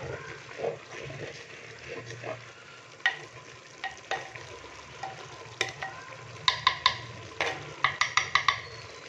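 Rice gently stirred with a white spoon in a clay handi, its water mostly cooked off, with a faint steady sizzle underneath. The spoon clicks sharply against the clay pot, a few times early on and in quick runs in the second half.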